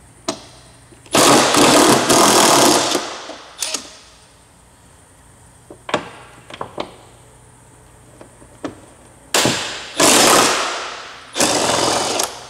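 Cordless 3/8-inch impact wrench with a 13 mm socket hammering as it loosens the nuts that hold the hood to its hinge. It runs in a spell of about two seconds near the start and three short runs near the end, each fading away, with a few light clicks in between.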